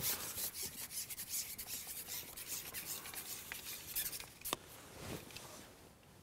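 Fast, repeated rubbing and rasping strokes as the carbon fishing pole is handled and shipped back hand over hand to land a hooked perch, fading out about four seconds in. One sharp click comes soon after, then a soft thump.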